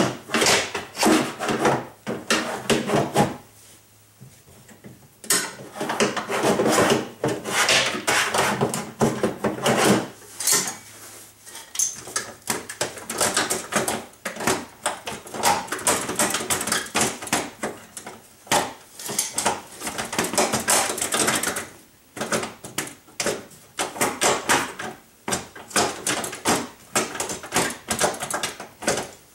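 Power window regulator being lifted and worked loose inside a van's front door, its metal rails and bolts rattling and clanking against the door's sheet metal in irregular bursts with short pauses.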